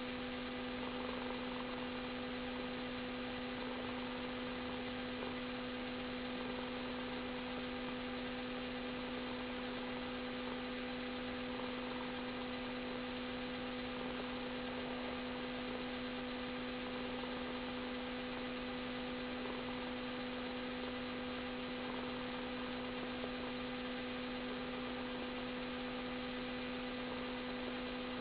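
Steady electrical hum: one constant low tone and its overtone over an even hiss, unchanging throughout.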